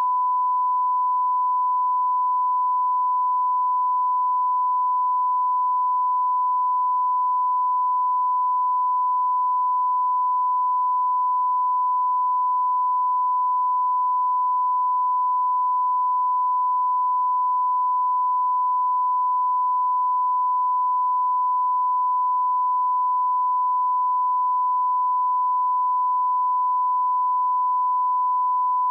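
Steady 1 kHz line-up test tone, a single pure beep held at one pitch and level, as played with colour bars at the head of a video.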